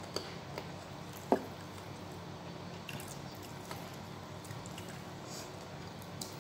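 Eating by hand: soft chewing and squishing of food with fingers in a bowl, with a few small clicks and one sharper click about a second in, over a steady low hum.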